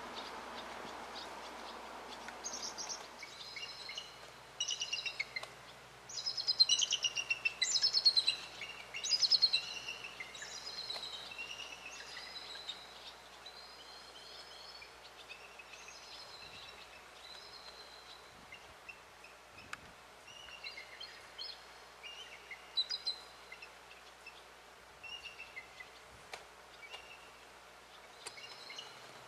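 Bald eagle calling: bursts of high, chittering whistled notes, loudest about six to ten seconds in, then fainter and more scattered. A rushing noise fades out over the first few seconds.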